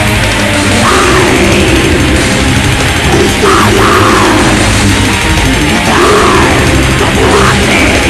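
Loud heavy metal music from a band's demo recording.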